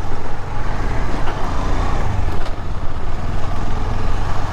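KTM 250 Adventure's single-cylinder engine running steadily while riding, with a heavy wind rumble on the microphone.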